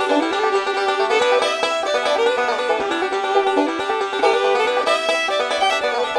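Background instrumental music: a fast plucked-string tune in a bluegrass style, banjo to the fore.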